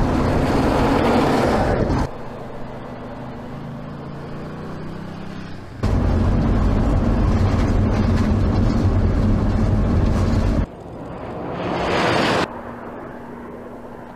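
High-performance car engines running hard with tyre and wind noise, in abruptly cut clips. Loud full-throttle stretches alternate with quieter passages of a steady engine drone. Near the end the engine sound swells and rises in pitch, then cuts off suddenly.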